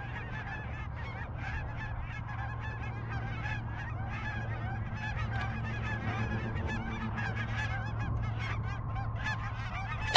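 A large flock of snow geese calling in flight, many overlapping calls in a continuous chorus that grows a little louder toward the end.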